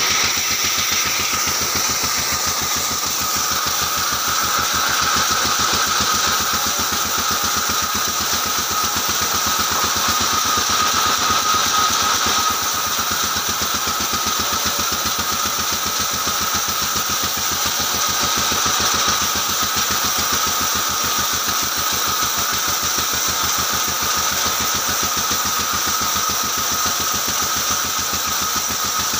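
Large vertical band saw running while a timber beam is fed lengthwise through the blade: a steady machine drone with a fast, even pulsing and a steady high tone over it.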